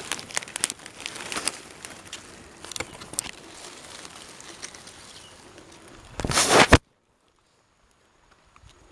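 Camouflage cloth and dry leaf litter rustling and crinkling close to the microphone, with scattered clicks. About six seconds in, a loud burst of rustling noise lasting under a second cuts off suddenly into silence.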